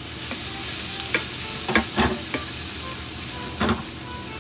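Diced onion sizzling in butter in a stainless steel pan, stirred with a wooden spatula that scrapes and knocks against the pan several times.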